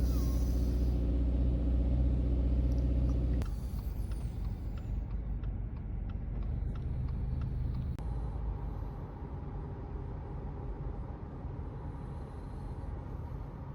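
Low rumble of a running vehicle. It is a steady, even hum for the first three and a half seconds, then changes abruptly to a rougher, quieter rumble with faint clicks.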